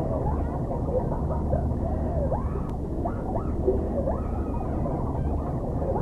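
A boy's frantic shouting and screaming, heavily muffled by an 'underwater' low-pass effect so that only dull rising and falling wails come through, over a steady low rumble. A sharp click sounds a little before the middle.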